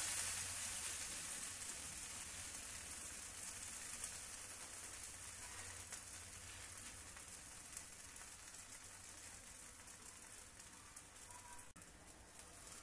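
Vegetable dosa sizzling on a hot dosa pan right after being flipped, the freshly turned side frying against the pan. The sizzle is strongest at the start and dies down gradually.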